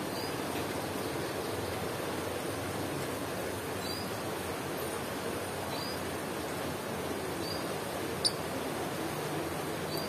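Faint, short, high bird chirps every second or two over a steady background hiss, with one sharp click about eight seconds in.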